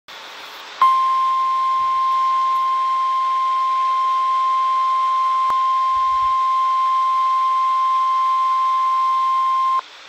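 NOAA Weather Radio 1050 Hz warning alarm tone: one steady high-pitched tone that starts about a second in and cuts off sharply about nine seconds later. It is the alert that switches on weather radios ahead of a warning broadcast, here a severe thunderstorm warning.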